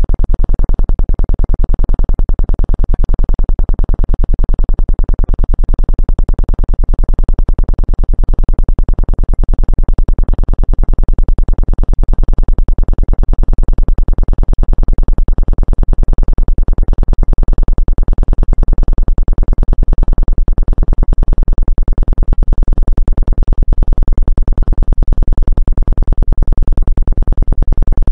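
Synthesized Rife frequency tone, played as a sciatica-relief frequency: a loud, steady electronic buzz made of rapid, even pulses, with most of its energy at the low end.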